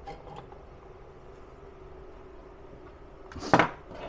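A single short clunk about three and a half seconds in as the LiFePO4 battery pack is handled on the workbench, with a couple of small clicks before it over a faint steady hum.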